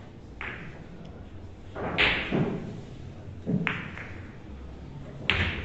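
Billiard balls knocking in a boccette game: several sharp clacks and knocks spread across the few seconds, the loudest about two seconds in.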